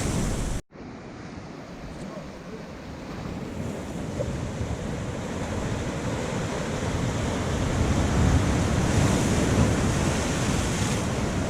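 Sea surf washing along a rocky shore, with wind buffeting the microphone. The sound cuts out for an instant just under a second in, then the surf builds back up gradually.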